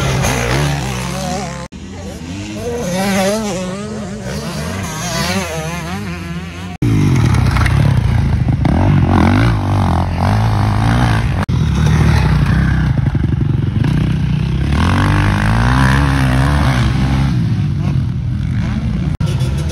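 Motocross motorcycle engines revving and running in several short edited clips, their pitch rising and falling. The sound gets louder and steadier about a third of the way in.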